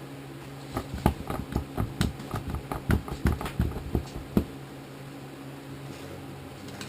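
Quick, irregular knocks and clinks of hand tools against the metal parts of a snowblower transmission being worked apart, for about three and a half seconds starting about a second in. A steady low hum runs behind them.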